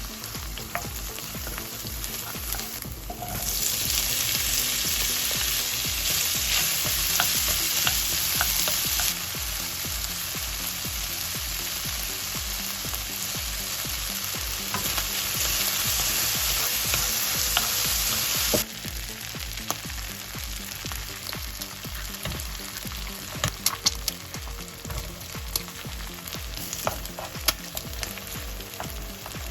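Food sizzling as it fries in a pan while being stirred. The sizzle grows louder about four seconds in and drops suddenly about two-thirds of the way through, after which sharp clicks and taps of a utensil against the pan stand out.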